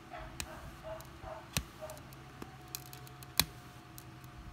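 Fingers and fingernails working at the edge of a small A1 smartwatch's case to open a tight-fitting part, with a few sharp plastic clicks, the loudest about three and a half seconds in.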